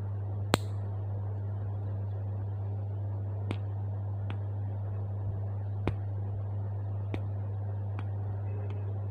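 Metal nail clipper snapping shut as nails are clipped: a sharp click about half a second in, the loudest, then about six fainter clicks spread through the rest. A steady low hum runs underneath.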